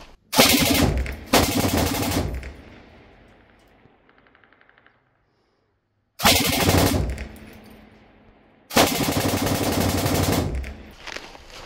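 Machine gun firing four bursts of automatic fire, the last one the longest, each burst trailing off in a fading echo.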